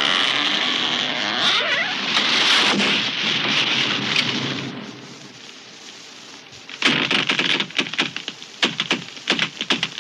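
Tree crashing down: a dense rush of breaking branches and leaves for about four and a half seconds, a short lull, then a quick irregular run of sharp wood cracks and snaps from about seven seconds in.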